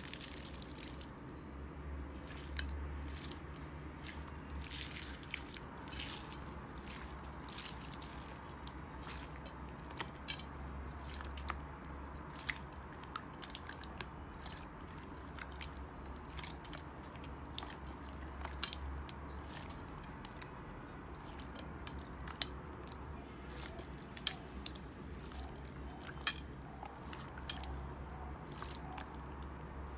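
Slime being squished and worked by hand, giving irregular crackling clicks and pops over a steady low hum.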